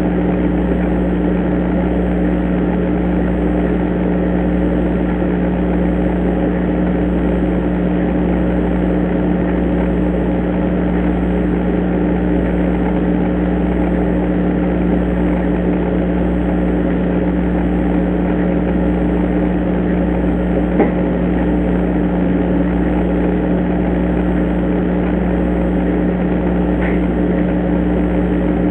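Steady hum and hiss picked up through a Foscam IP camera's microphone, with one sharp tap about 21 seconds in and a fainter tick near 27 seconds.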